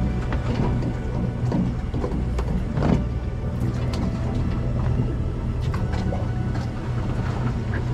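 Boat engines idling with a steady low hum, with scattered light knocks and clicks from the boats.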